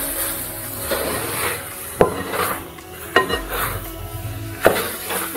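A metal spoon stirring chunks of chicken and pork in a large metal pot, scraping through the food with three sharp clanks of metal on metal, one of them ringing briefly.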